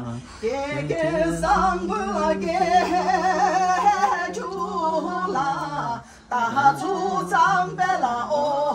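A woman singing unaccompanied, a held melody with wavering, ornamented turns, pausing for breath about six seconds in before carrying on.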